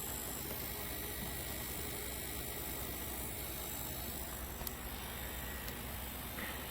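Humidifier running with a steady hum and buzz coming from inside the back of the unit, the noise the owner is pointing out. A couple of faint ticks come in the second half.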